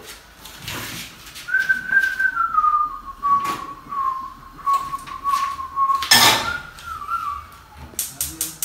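A person whistling a slow tune, one clear note stepping down to the next, cut off about six seconds in by a loud clank of a metal pan on the gas stove; the whistling picks up briefly again, and light clinks of cookware follow near the end.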